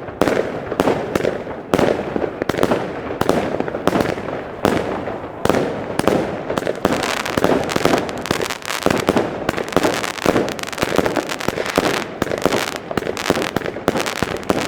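Iskra Okazija firework battery firing a rapid string of shots and bangs, about two or three a second at first, then packing into a denser, almost continuous run of bangs from about halfway through.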